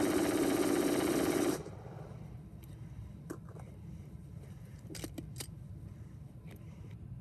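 AR-15 rifle firing a long, unbroken string of rapid shots that cuts off suddenly about one and a half seconds in, followed by a few sharp metallic clicks from the rifle being handled.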